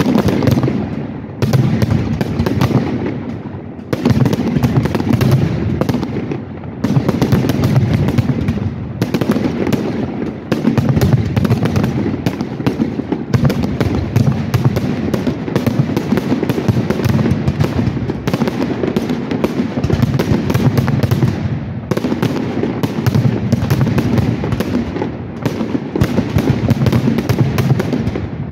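Aerial fireworks going off in a dense, nearly continuous barrage of bangs and crackling, with a few short lulls.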